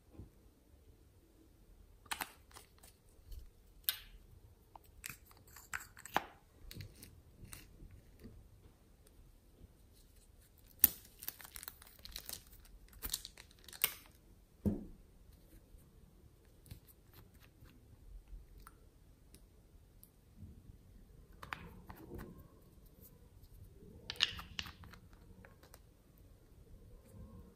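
Hands handling slime and small plastic slime containers: scattered small clicks, crackles and crinkles, with a denser run of crackling near the middle.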